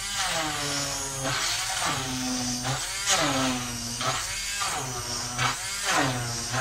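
Electric hand mixer running in a bowl of boiled potatoes, beating them into mash. Its motor pitch sags and recovers about once a second as the beaters take and shed the load.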